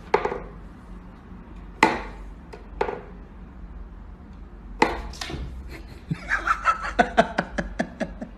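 Wooden whack-a-mole cat toy knocking as its wooden pegs are pushed and paws strike the box. A few single knocks, then from about two-thirds of the way through a rapid clatter of about five knocks a second.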